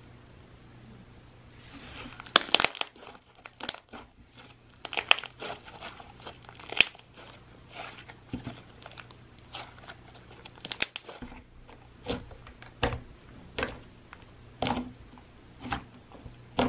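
Hands squishing and stretching slime, making irregular sticky pops and crackles that start about a second and a half in.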